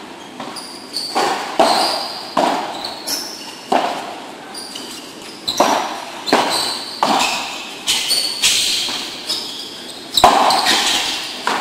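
Padel rally: solid padel rackets striking the ball and the ball bouncing off the court and walls, a quick run of sharp knocks about one every half to one second, each with a short echo in the enclosed hall. The loudest hit comes about ten seconds in, on an overhead.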